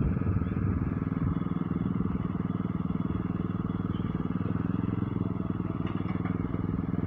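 Lawn mower engine running steadily, a constant even drone.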